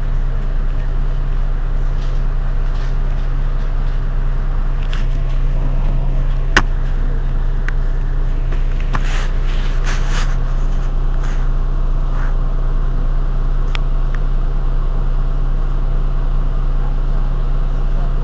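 Heuliez GX 127 city bus's diesel engine idling at a stop, a steady low hum. A single sharp click about six and a half seconds in.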